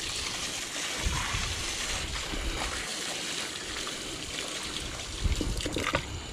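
Water pouring and splashing steadily, as mud is washed off riverbank steps. A few knocks near the end.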